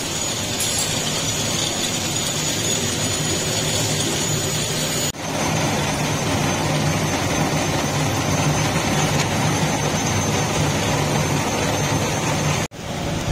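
Metal lathe running steadily, turning and facing the steel rod-end eye of an excavator's hydraulic cylinder: a steady machine hum with a thin high whine. The sound breaks off briefly twice, about five seconds in and near the end.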